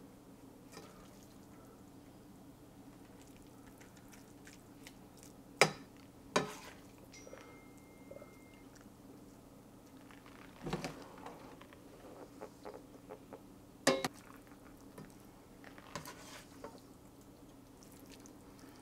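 A slotted serving spoon spooning rice and a cabbage-and-meat mixture into a metal cooking pot, knocking sharply against the pot three times, with soft scuffs between. A faint steady low hum runs underneath.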